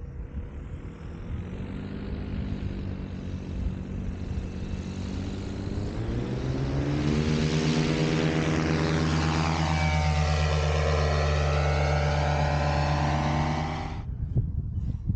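Paramotor engine and propeller spooling up, rising steadily in pitch over several seconds, then held at high revs before cutting off suddenly near the end.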